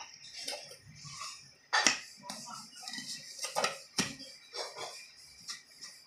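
Metal parts of a ceiling fan's housing clinking and knocking as they are handled and the bowl-shaped cover is fitted onto the motor body: a handful of sharp taps, the loudest about two seconds in.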